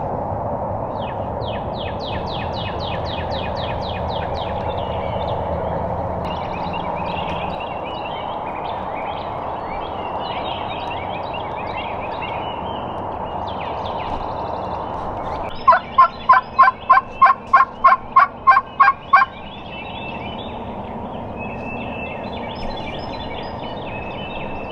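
A mouth diaphragm turkey call run as a series of about eleven loud yelps, lasting about three and a half seconds past the middle. Small birds chirp and trill in the background, mostly in the first half.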